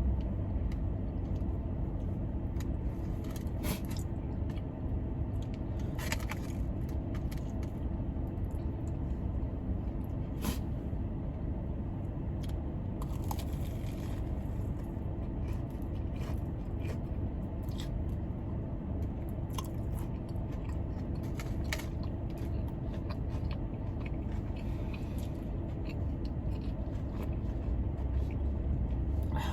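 Close-up eating sounds: chewing and biting food, with scattered sharp crunches and clicks. Under them runs the steady low hum of a car's air conditioning.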